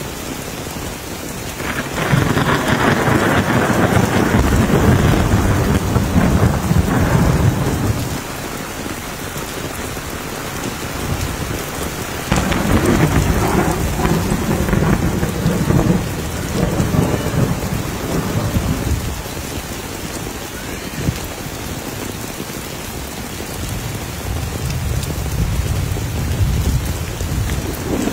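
Heavy rain pouring on wet ground with long rolls of thunder: one rumbles from about two seconds in for some six seconds, a second comes in about twelve seconds in, and a third builds near the end.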